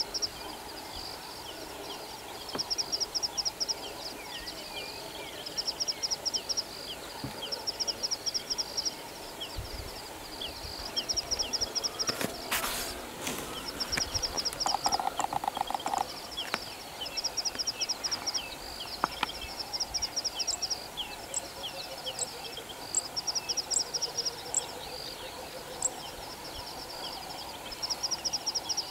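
Natural outdoor ambience: short trains of rapid, high-pitched chirping pulses repeating every couple of seconds, with scattered short falling bird-like chirps. A brief rush of noise comes about twelve seconds in, and a short lower pulsed call a few seconds later.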